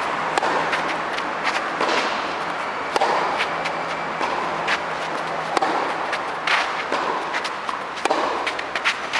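Tennis rally on a clay court: sharp knocks of racket strikes on the ball and of bounces and quick footsteps, over a steady background noise.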